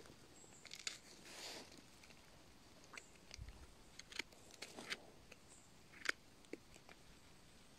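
Small knife cutting and trimming a bolete mushroom's firm flesh: a scattering of faint, short crisp snicks and scrapes, the sharpest about six seconds in.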